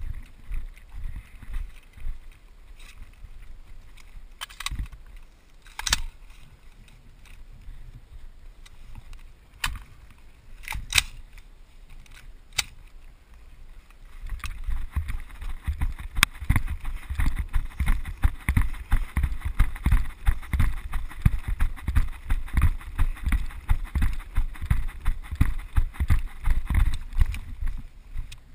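Footsteps on a dirt range and gear jolting against a helmet-mounted camera with each stride, a dense run of rhythmic thumps from about halfway on. Before that, a few isolated sharp clicks or cracks.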